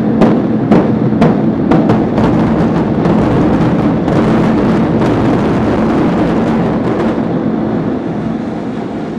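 Demolition charges in the controlled implosion of a concrete parking garage firing as a string of sharp bangs, about two a second, for the first couple of seconds. Then comes a loud, continuous rumble as the structure collapses, fading near the end.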